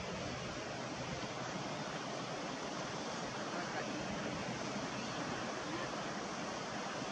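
Steady rush of wind and water, with a faint low hum under it.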